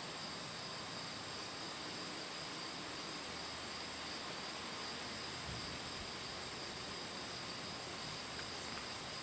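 Steady chorus of insects: a continuous high-pitched trilling over a faint hiss.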